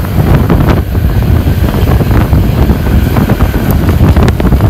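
Intercity bus engine rumbling loudly through a 'srigala' (wolf) aftermarket exhaust, a rough low rumble with frequent short, sharp cracks.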